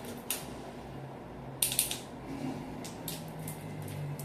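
Light clicking and tapping on a hard wooden floor from a young Belgian Malinois puppy's claws and its food treats as it scrambles after the food. There is one click about a third of a second in, a quick cluster of clicks near the middle, which is the loudest part, and softer taps after.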